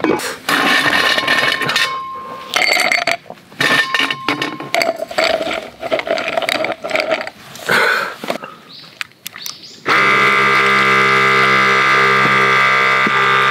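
Ice cubes clinking and clattering into a glass. About ten seconds in, an electric bottle-top dispenser pump starts with a steady whirring hum as it dispenses liquor from the bottle into the glass.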